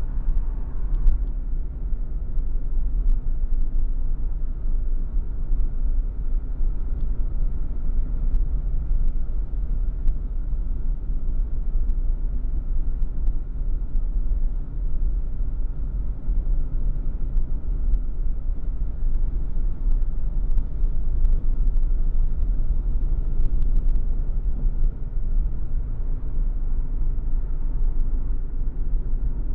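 A car climbing a mountain road at a steady pace: a constant deep rumble of engine and road noise with a low, even engine hum and no revving.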